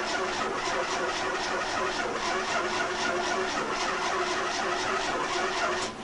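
1968 GMC pickup's 305 cubic-inch V6 engine heard at the exhaust tip, with an even pulse about four times a second, stopping abruptly near the end.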